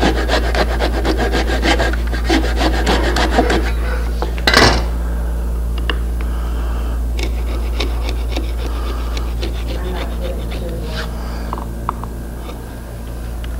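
A wood chisel scraping and paring the bottom of a dado in a pine board. A quick run of short scraping strokes lasts about three and a half seconds, one louder scrape comes about a second later, and then there are scattered light scrapes and taps.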